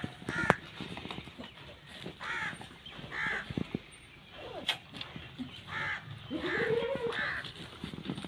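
Short, harsh animal calls, one at a time or in quick pairs every second or two, over scattered knocks and rustles.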